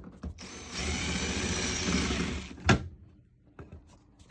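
Cordless screw gun with a 1/4-inch hex bit running for about two seconds as it backs out a mounting screw, followed by a sharp knock and a few faint clicks.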